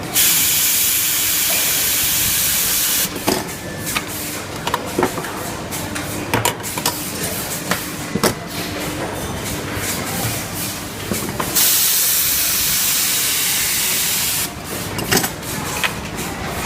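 Automatic precision soldering machine running: a steady hiss that cuts in and out sharply, for about three seconds at the start and again for about three seconds near the end, with irregular mechanical clicking and ticking between.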